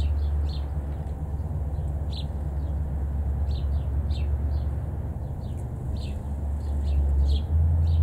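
House sparrows chirping, short falling chirps about twice a second, over a loud steady low rumble.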